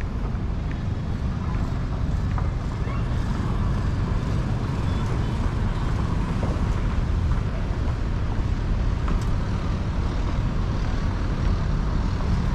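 Steady engine and road noise of a moving vehicle, with no distinct events, rising slightly in level partway through.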